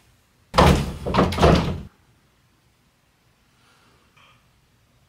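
Bedroom closet doors being pushed shut: a burst of several knocks and bangs lasting about a second and a half.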